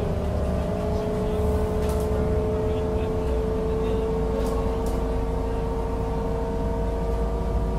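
Inside a moving bus: a steady low engine rumble with a sustained whine that slowly rises in pitch.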